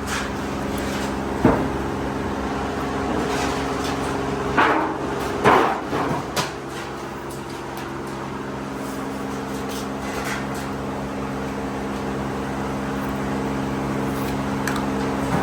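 Steady hum of workshop machinery, with sharp knocks: one about a second and a half in, then a cluster of four between about four and a half and six and a half seconds.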